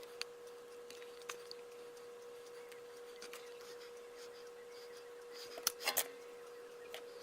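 Scattered small clicks and taps, with a louder cluster of several sharp clicks near the end, over a steady electrical hum. This fits small plastic parts and tools being handled during a controller repair.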